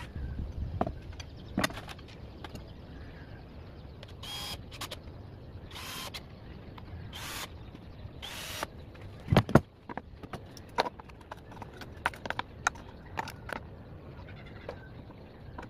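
Cordless drill-driver running in four or five short bursts as it drives screws into steel concealed cabinet hinges, with clicks and knocks of the hinges and plywood being handled; one loud knock about nine seconds in.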